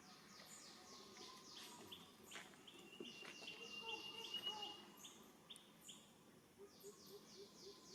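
Faint bird chirping: rapid series of short, high notes that each fall in pitch, repeated several times a second, with a thin held whistle in the middle and a quick run of lower pulses near the end.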